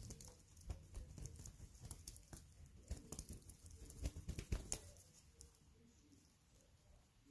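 Faint quick taps, scratches and rustles of a polydactyl cat batting and grabbing at a fluffy wand toy on a wooden floor and mat, dying away about five seconds in.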